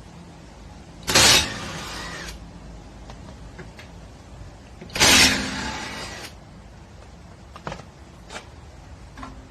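Cordless 1/2-inch impact wrench fired in two short bursts, each starting abruptly and running about a second.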